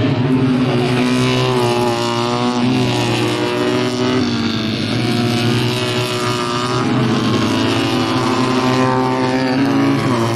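Two-cylinder Fiat 500 race car engines at high revs as several cars pass in close succession. The engine pitch drops and climbs again several times as the drivers lift and change gear.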